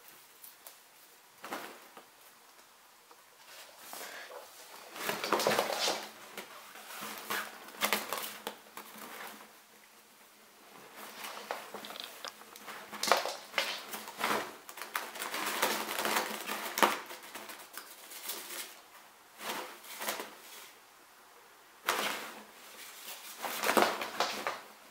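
A cat scrambling and batting inside a fabric play tunnel: the tunnel's material rustles and crackles in irregular bursts, mixed with quick taps and scratches of paws, with quieter pauses between the flurries.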